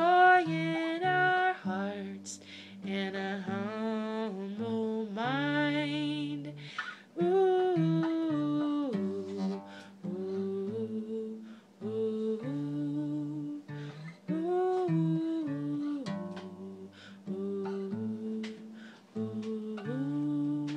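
A woman sings a wordless, humming melody in long wavering phrases over a strummed acoustic guitar.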